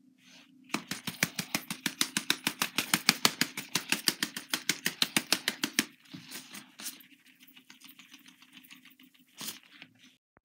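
A small container of sprinkles shaken hard over slime: fast, even rattling clicks, about nine a second, for about five seconds, then a few scattered clicks. A faint low hum runs underneath.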